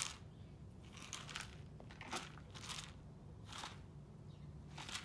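Rabbit chewing dry food pellets from a plastic tray: a faint series of short, irregular crunches.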